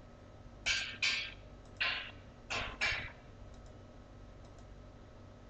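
Five short clicks from computer input, in two pairs with a single click between them, followed by a few much fainter ticks.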